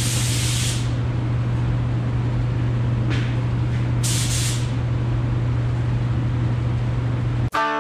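Gravity-feed air spray gun hissing in short bursts of paint spraying: a burst ending under a second in, and another about four seconds in. A steady low hum runs underneath. Guitar music starts near the end.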